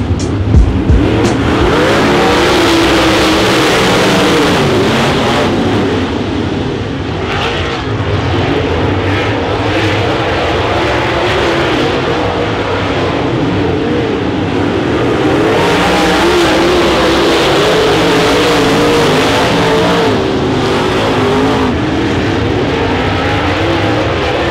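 A pack of dirt late model race cars running a heat race, their V8 engines rising and falling in pitch as they circle the track. There are a couple of sharp thumps in the first second.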